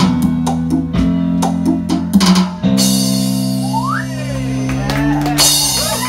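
Live band playing with electric guitars and drum kit: a steady beat for about two and a half seconds, then a long held chord rings out with a note rising in pitch, and a cymbal wash comes in near the end.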